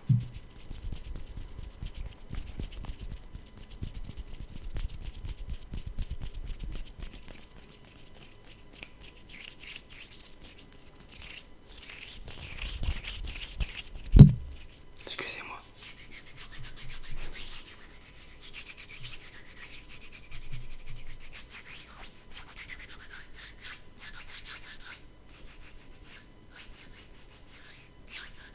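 Hands rubbing together: a dry rubbing that swells and fades in waves, with one heavy thump about halfway through.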